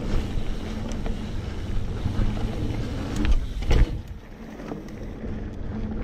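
Mountain bike rolling over a dirt trail: a steady low rumble of the tyres and the bike, with wind on the microphone. Two sharp knocks about three and a half seconds in, as the bike jolts over a bump or root.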